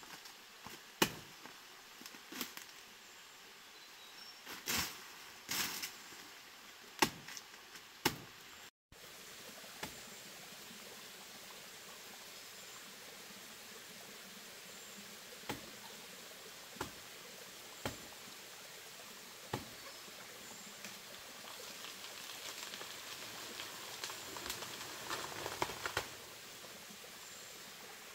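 Sharp chopping strikes, about one a second, as a wild banana plant's stem and dry leaves are hacked at by hand. Then steady faint forest ambience with a few scattered snaps and a spell of leaf rustling near the end.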